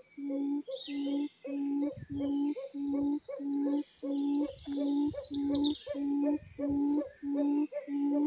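Quail call: a short low hooting note repeated very evenly about twice a second, with small birds chirping higher up and a falling trill about four seconds in. A few low rumbles come and go underneath.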